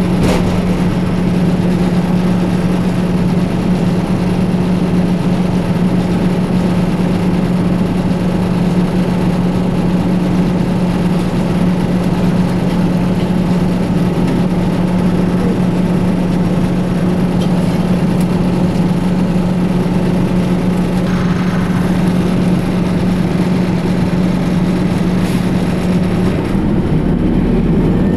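Detroit Diesel Series 50 EGR diesel engine of a 2004 New Flyer D60HF articulated bus running steadily under way: a loud, even drone with faint steady squealing tones above it from a slipping accessory belt. The engine note drops and deepens near the end.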